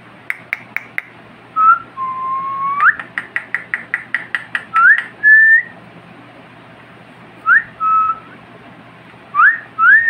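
Short pure whistled notes, mostly quick rising glides with one longer, slowly rising note, and a fast run of about a dozen sharp clicks in the middle.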